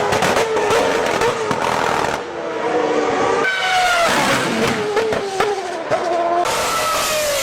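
High-revving racing engines passing at speed, each note sweeping down in pitch as the machine goes by. The sound changes abruptly about two seconds in and again near the end, as one pass gives way to the next.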